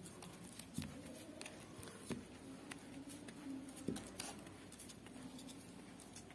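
Faint rustling and a few scattered small clicks of stretchy green tape being wound around a wire flower stem.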